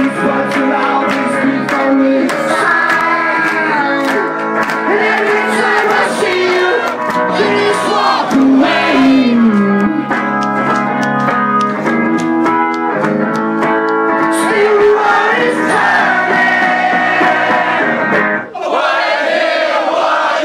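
Live indie rock band playing loudly: electric guitar, bass and drums under a male lead vocal, with crowd voices mixed in. About two seconds before the end the band's low end drops away, leaving the crowd shouting.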